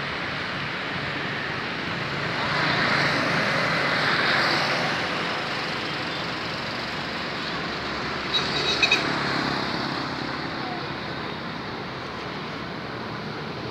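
Street traffic of motorbikes and scooters passing, swelling as one goes by a few seconds in. Near the middle comes a quick run of short, high beeps.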